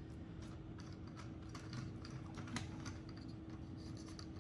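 Faint, irregular clicks and taps from the parts of a JoyToy Nemesis Dreadknight action figure being handled as its torso is opened up.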